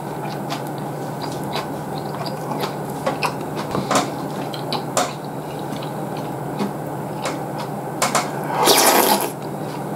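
Eating sounds from a bowl of ramen: small clicks of chopsticks and a spoon and mouth sounds over a steady background hum, then a loud slurp of broth from the spoon about nine seconds in.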